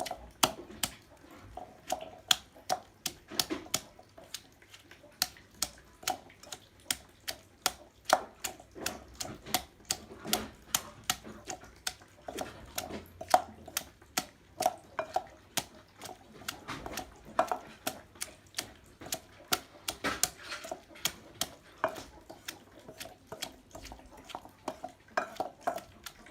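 Pestle pounding ginger and Cuban oregano leaves in a mortar: a steady run of knocks, about three a second, some louder than others.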